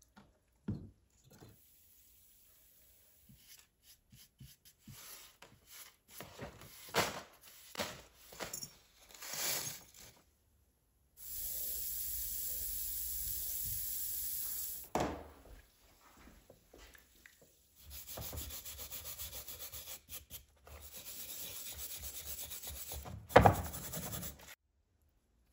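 A stiff brush scrubbing loosened black rust sludge off an old iron hammer head after electrolysis, in fast, even strokes, with scattered scrapes and handling noises and one loud knock near the end. For a few seconds in the middle comes a steady hiss of the electrolysis bath fizzing with bubbles.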